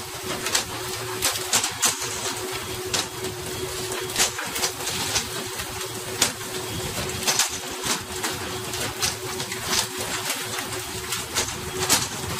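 Sharp, irregular slaps and knocks, several a second, of pole-caught tuna landing and thrashing on the boat's deck, over rushing water and a steady low hum.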